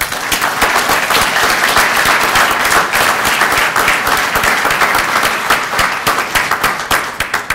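Audience applauding: many hands clapping densely and steadily, starting at once and dying away right at the end.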